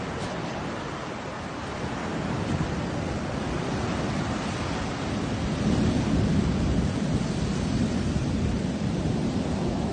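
Rough sea surf breaking and washing up a sandy beach, with wind buffeting the microphone. The rumble grows louder about halfway through.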